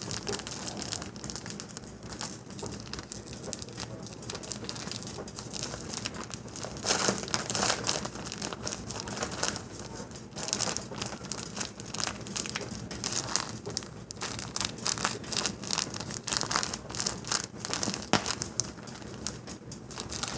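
Irregular crinkling, rustling and scratchy taps from handling powdered sugar and its packaging while sprinkling it over a pan of brownies.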